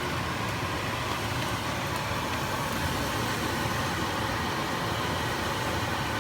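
Steady, even background noise with a low hum underneath, unchanging throughout, like a fan or extractor running in a kitchen.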